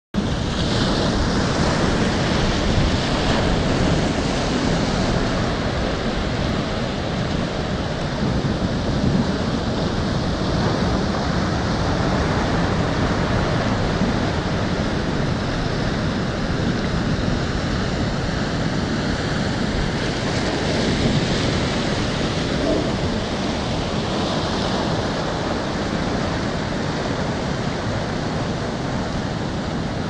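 Ocean surf: waves breaking and washing in over a sea wall, a steady rushing that swells a little with each wave.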